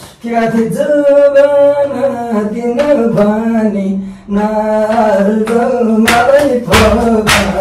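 A person singing a melody without accompaniment, in long held, wavering notes with a short break about four seconds in. A louder, noisier stretch near the end.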